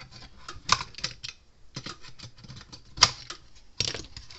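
Irregular clicks and clacks of hands pulling wire connectors off a fence charger's transformer and handling the parts in its plastic case, with three sharper clacks, the loudest about three seconds in.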